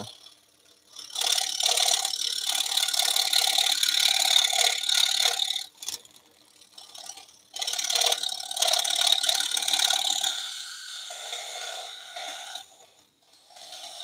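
Scroll saw blade cutting through a thin wooden blank in several runs of a few seconds each: a fast rattling buzz that stops briefly between cuts, about six seconds in and again near the end, as each cut is finished.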